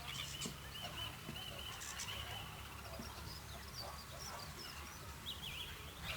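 Birds calling: a run of quick looping calls in the first two seconds or so, then scattered higher chirps, over a steady low rumble of harbour ambience.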